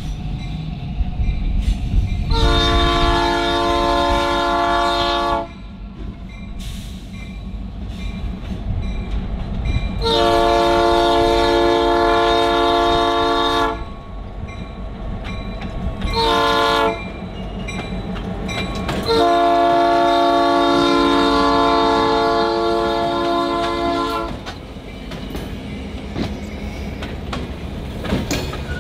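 Diesel locomotive horn sounding the grade-crossing signal, long, long, short, long, with the last blast held longest. Under it runs the steady rumble of a Grand Trunk Western GP38-2's EMD diesel engine passing close by. Near the end the rolling rumble of the freight cars follows.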